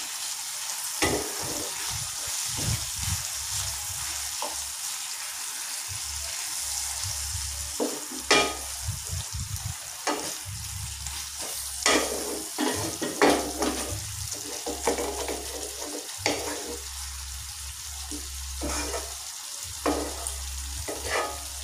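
Stuffed pointed gourds simmering in a thick yogurt masala in a pan, making a steady sizzle, with a spatula scraping and knocking against the pan now and then as the gourds are turned. A low steady hum lies under it.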